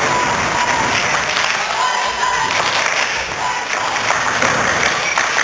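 Crowd of spectators clapping and cheering in a steady din, with a high held tone rising out of it twice.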